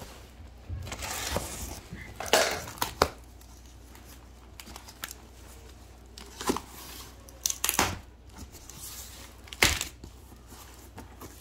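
Packaging being handled and torn open: irregular rustling and crinkling with a few sharp knocks.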